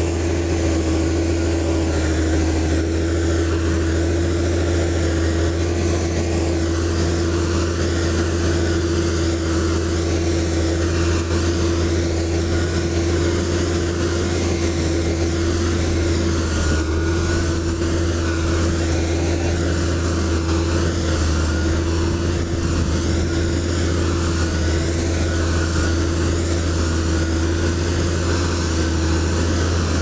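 Motor grader's diesel engine running steadily: an even, deep drone with a constant hum above it.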